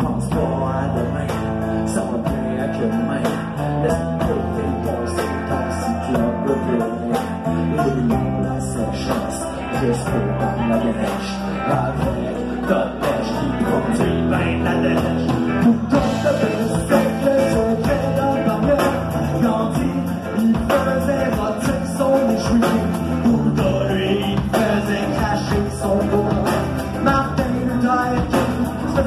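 Rock band playing a passage with no words sung, bass and guitar over a steady drum beat.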